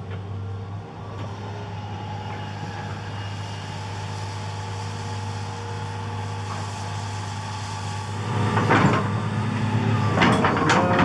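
A 20-ton excavator's diesel engine running steadily. From about eight seconds in it gets louder, with a run of clanks and knocks as the machine works.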